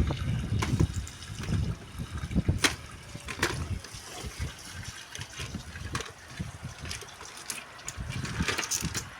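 Water trickling and splashing, with scattered knocks and clatter of handling.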